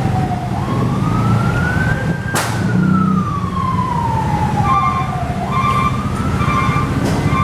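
A vehicle siren wailing, its pitch rising and falling slowly, about two seconds up and two seconds down, over a steady low engine rumble. A sharp click comes a little over two seconds in, and from about five seconds in a short beeping tone repeats at under a second's spacing.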